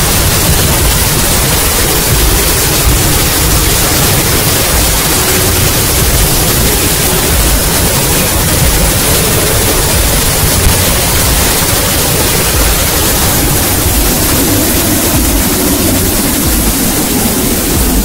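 Hot air balloon inflation: a loud, steady roar of air being blown and heated into the envelope, with a low engine rumble beneath from the inflator fan, as the burner heats the air going into the envelope.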